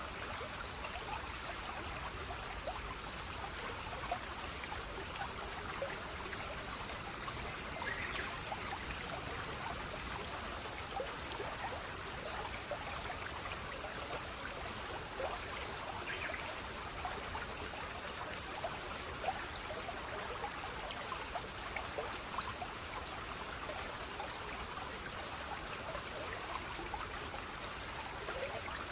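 Flowing water trickling steadily, with many small splashes and drips.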